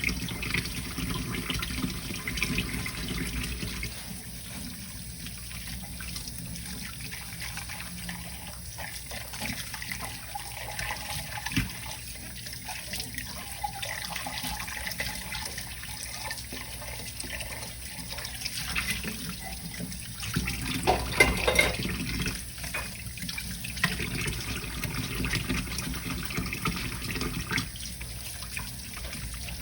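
Water running from a tap into a kitchen sink as dishes are washed by hand, with scattered clicks and knocks of dishes. The knocks come thickest and loudest about twenty seconds in.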